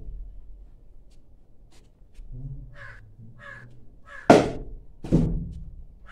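A cricket bat striking a ball hung on a string, two sharp knocks about a second apart a little after halfway. Crows caw several short times.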